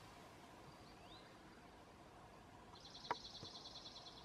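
Quiet field ambience. Near the end, a high, rapid trill of about ten pulses a second lasts just over a second, with a single sharp click at its start.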